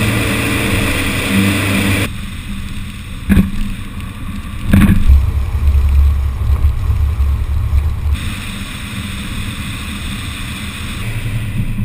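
A Subaru Outback driving on gravel forest roads, heard from cameras mounted outside the car: a loud, steady rumble of tyres on gravel and road noise. The sound changes abruptly at several edits, and two sharp knocks come a few seconds in.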